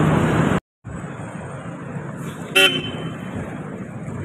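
Street traffic noise with a car horn giving one short toot about two and a half seconds in. The sound drops out completely for a moment near the start.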